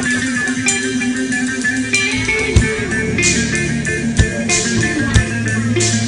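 Music track with guitar, bass and drums playing a steady beat.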